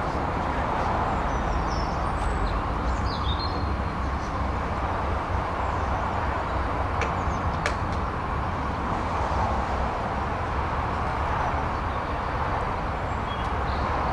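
Steady outdoor rumble and hiss, with a few short high chirps and a couple of faint clicks.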